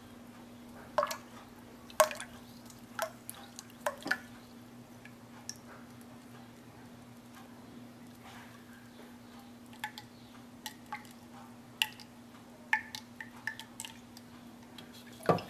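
Oat milk dripping into a glass: scattered single drips, a few in the first seconds and another run near the end, over a steady low hum.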